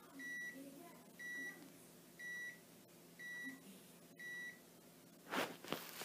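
Panasonic SD-2500 bread maker's end-of-programme beeper: a short high beep about once a second, five times, signalling that the bake is finished. Near the end come rustling and knocks.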